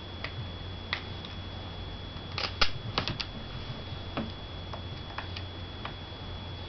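Light clicks and taps of a small Torx screwdriver and the BlackBerry 8830's casing as its screws are worked out, with a quick run of sharper clicks about two and a half seconds in.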